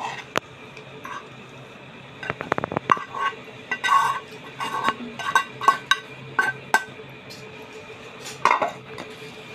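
A metal spoon scraping shredded chicken masala out of a non-stick frying pan onto a plate, knocking and clinking against the pan rim and plate. A quick run of taps comes a little past two seconds in, followed by a string of short ringing clinks.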